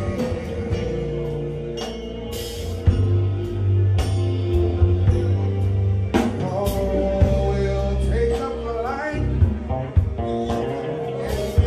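A live band playing with a man singing into a handheld microphone over it, sharp drum hits landing every second or so through the mix.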